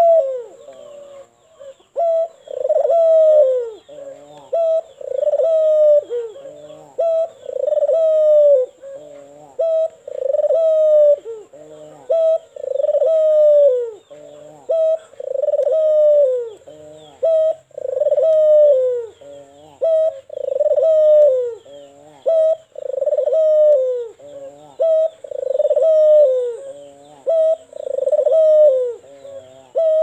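White Barbary dove (puter putih) cooing over and over, giving its song coo about every two to two and a half seconds. Each coo is a short note followed by a longer, falling note.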